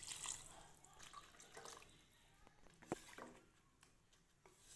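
Faint water pouring from a jug into a pressure cooker of rice and chicken, the cooking water for the biryani going in, fading out after about a second. Then near quiet, with a single sharp tap about three seconds in.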